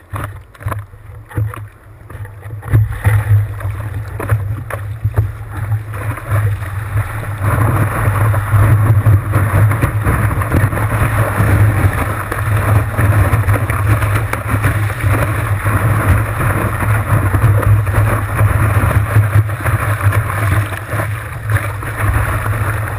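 Sea water rushing and splashing around a board-mounted camera while a rider lies prone on the board in breaking whitewater, under a heavy low rumble of water and wind buffeting the camera. Scattered knocks and splashes at first, then a louder, steady rush from about seven seconds in as the wave carries the board.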